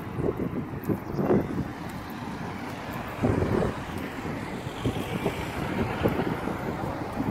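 Road traffic in a town street, with wind buffeting the microphone in irregular low gusts.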